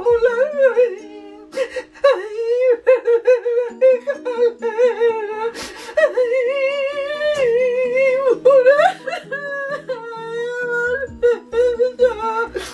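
A woman's voice in pretend crying, wailing and whimpering in long, high, wavering sobs as she acts out saying a short rhyme very sadly. Soft background music runs underneath.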